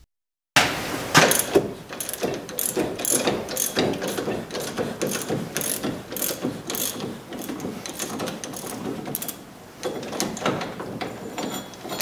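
Socket ratchet clicking rapidly in quick runs as it backs out the front wheel hub's mounting bolts.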